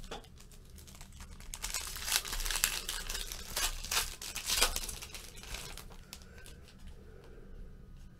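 Foil wrapper of a Bowman Chrome baseball card pack being torn open and crinkled by hand: a dense crackle of tearing and crumpling for a few seconds that dies away over the last two seconds.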